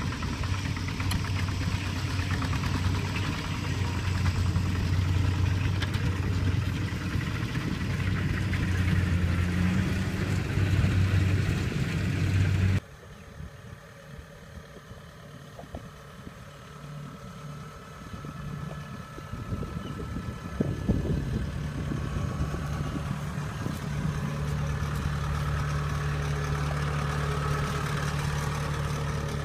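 Diesel engine of a two-wheel walking tractor running steadily while it pulls a loaded trailer. It cuts off abruptly about 13 s in to a quieter tracked combine harvester engine, which grows louder and steadier about 21 s in.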